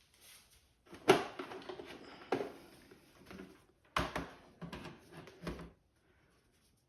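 Hard computer parts being handled and pressed into place: a few sharp knocks and clicks with small rattles between them, the loudest about a second in.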